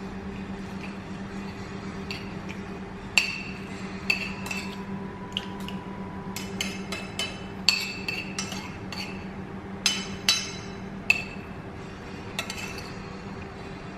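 Metal spoon clinking and scraping against a ceramic plate while eating: irregular sharp clinks, thicker and louder from about three seconds in, over a steady low hum.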